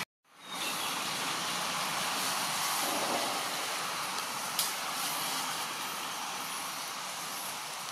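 Steady rushing outdoor background noise with no clear pitch. It drops out for a moment at the very start and fades back in within half a second, with a single faint click about halfway through.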